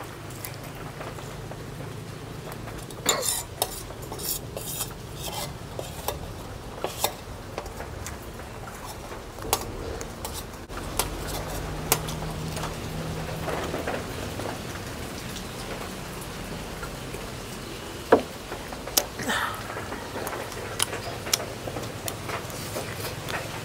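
Scattered clinks and clatter of dishes and eating utensils during a meal, over a steady low hum, with a cluster of clicks a few seconds in and one sharp knock near the end.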